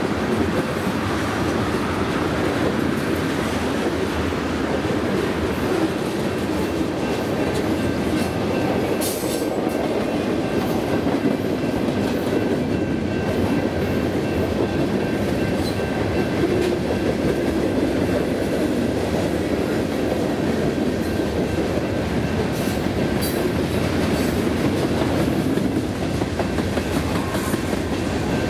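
Freight cars of a Union Pacific manifest train rolling past at speed: a steady, loud rumble of steel wheels on rail, with occasional clicks as the wheels pass over the track.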